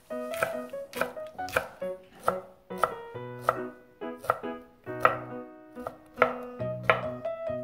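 Chef's knife chopping green onions on a wooden cutting board: a steady run of sharp knocks, about two a second, as the blade cuts through to the board.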